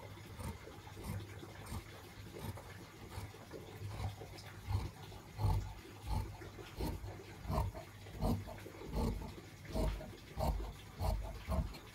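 Large tailoring shears cutting through blouse fabric: steady repeated snips, about one and a half a second, starting about four seconds in, each with a soft thud of the blades against the padded table.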